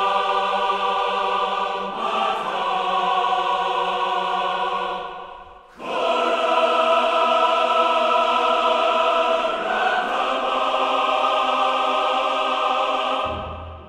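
Choral music: long held chords from a choir, dipping briefly about six seconds in, then resuming and cutting away shortly before the end.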